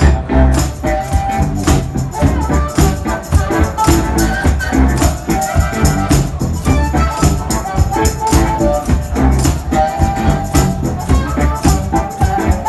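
Live blues-rock band playing with a strong steady beat, an amplified harmonica cupped against a microphone playing the lead line.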